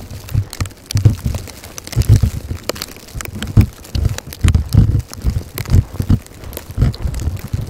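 Blizzard wind buffeting the microphone in irregular low gusts, several a second, with scattered sharp ticks.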